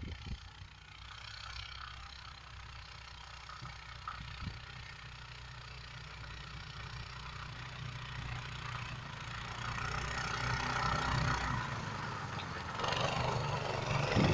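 Mini snowmobile's small engine running steadily, growing louder about two-thirds of the way in.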